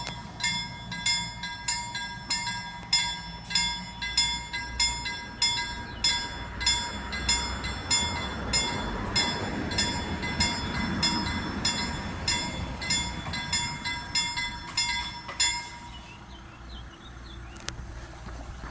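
A VTAB train passing, its rumble swelling through the middle, while an evenly repeating ringing, most likely a level crossing bell, strikes about one and a half times a second and stops a few seconds before the end.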